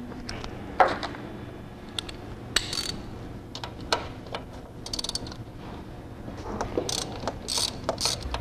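Hand tools working on a car engine: scattered metallic clinks and ratchet clicks as a socket wrench is worked on the engine's bolts, over a low steady hum.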